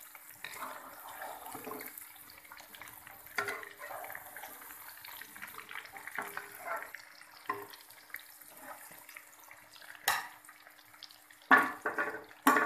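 Masala-coated chicken pieces deep-frying for the second time in hot oil in a metal karahi, a steady fine sizzle, with a metal spoon scraping and stirring in the pan and a few sharp clinks against it near the end.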